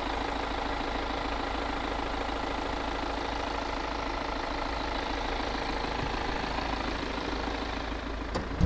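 BMW X1 xDrive20d's 2.0-litre four-cylinder turbodiesel idling steadily, heard with the bonnet open. A couple of light knocks near the end.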